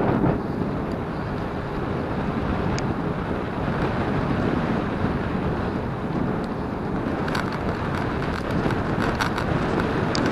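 Wind rushing over the microphone of a camera moving along a road, with steady road noise underneath. A few faint clicks come in the second half.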